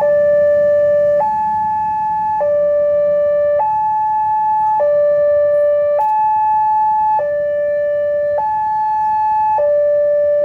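Railway level-crossing warning siren sounding a steady two-tone alarm, switching between a lower and a higher tone about every 1.2 seconds, the signal that a train is approaching.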